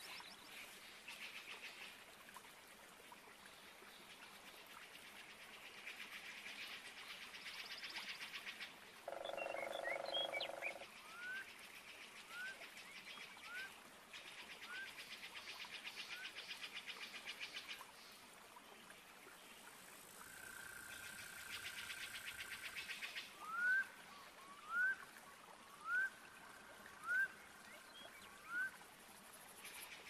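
Amazon rainforest soundscape of calling frogs and other animals: pulsing trills that come and go in bursts of a few seconds, a short low call about ten seconds in, and a run of short rising chirps about a second apart, the loudest of them near the end.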